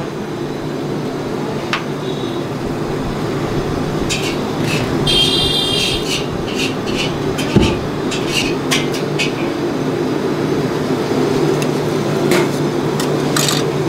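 A steady low mechanical drone of kitchen equipment, with short scrapes and clicks from a metal spatula working oil over a giant dosa on a hot griddle.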